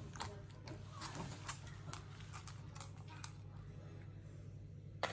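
Silkie chicken pecking mashed potato off a paper plate: a run of quick, irregular beak taps that thin out after about three seconds, with one sharper tap near the end. A low steady hum runs underneath.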